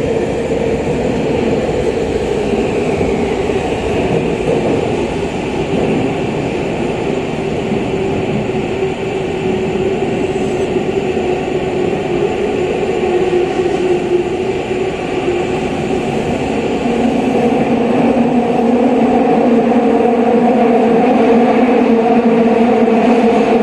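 Tokyu 5000 series subway train running through the tunnel, heard from inside the passenger car: a steady rumble of wheels and car body with a humming tone. The hum grows louder and gains extra tones in the last third.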